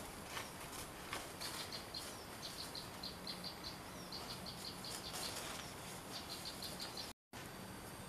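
A small warbler, a perenjak, calls a rapid series of short, high, evenly spaced notes, about five a second, in several runs with short pauses between them.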